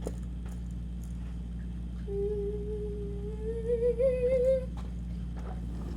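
A person humming one held note for about two and a half seconds, starting about two seconds in, drifting a little higher and wavering near the end, over a steady low background hum.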